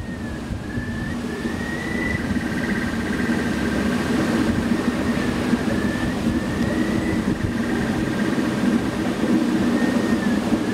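Electronic sound piece played through the loudspeakers built into The Morning Line sound-art pavilion: a steady low drone under a high tone that dips and glides back up about every five seconds.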